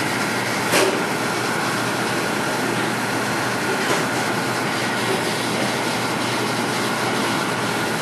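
1971 Hobart AM-9 commercial dishwasher running mid-cycle: its pump and motor going steadily with water rushing and spraying inside the stainless chamber, under a faint steady whine. A light knock comes just under a second in.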